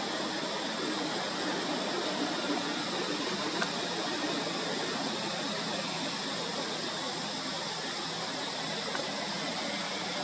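Steady, even rushing hiss of outdoor forest ambience with no distinct events. A faint thin high tone runs through it, and there are a couple of small ticks a few seconds in.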